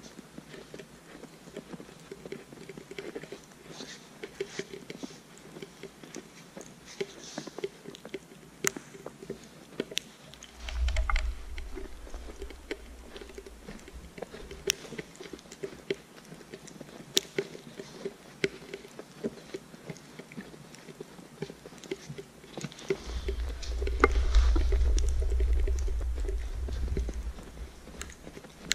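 Footsteps in fresh snow at a steady walking pace, with a few sharp snaps. A deep low rumble swells twice, briefly about ten seconds in and for several seconds near the end.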